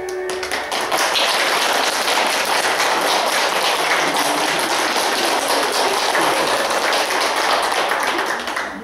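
Audience applauding: dense clapping begins about half a second in, just as the last note of the backing music cuts off, and dies away near the end.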